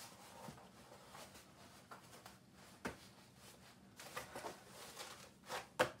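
Soft rustling and handling of a stiff cardboard costume, with a few sharp knocks; the two loudest come close together near the end.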